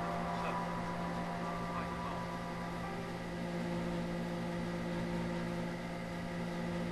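A steady low hum with fainter steady tones above it, holding an even level throughout.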